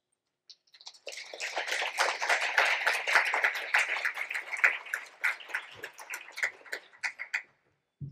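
Audience applauding. It starts about a second in, builds quickly, then thins out to a few scattered claps and stops.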